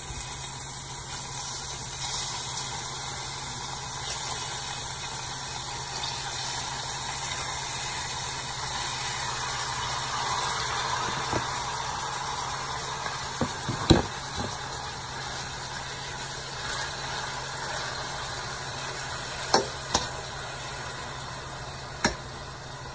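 Chunks of raw chicken breast sizzling in hot oil in a stainless steel frying pan, a steady hiss, with a few sharp clinks of a metal spatula against the pan, the loudest about halfway through.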